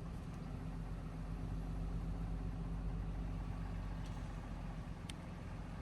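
Vehicle engine running steadily with a low rumble and a steady hum, heard from inside the vehicle.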